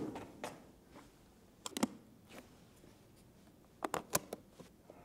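Aluminium briefcase being handled on a table: a few scattered sharp clicks and taps, a pair about two seconds in, then a quick run of clicks near the end as its latches are snapped open.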